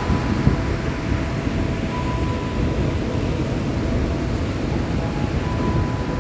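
Ocean surf breaking steadily, with wind rumbling on the microphone.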